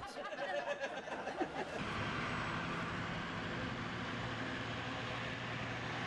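Steady rushing of a fast glacial river in whitewater, starting about two seconds in.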